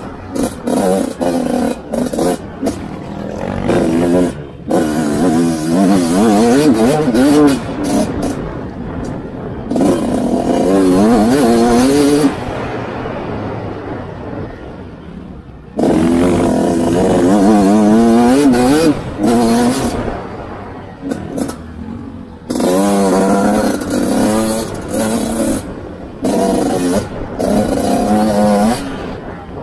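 Dirt bike engine heard from on board, revving up and down as the rider works the throttle over the track, with wind buffeting the microphone. About twelve seconds in the throttle is shut and the engine falls away for three or four seconds before it pulls hard again.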